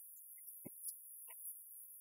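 Near silence: a faint steady high hiss with a few soft clicks near the middle.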